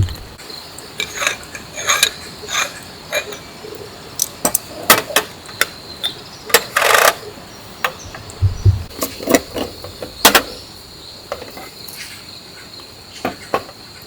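Irregular clicks and clacks from handling cooking utensils and dishes, over a steady high-pitched insect trill, likely crickets.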